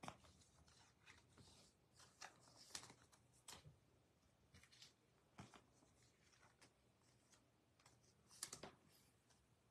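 Near silence with faint, scattered clicks and rustles of baseball cards being handled, with a slightly louder cluster of rustling near the end.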